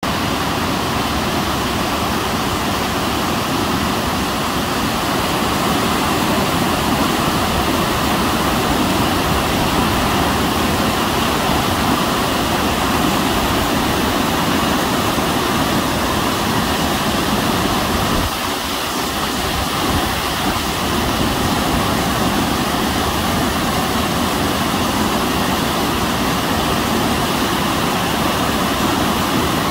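Muddy water pouring over a wide concrete dam spillway and churning in the pool at its foot: a steady, loud rush of water.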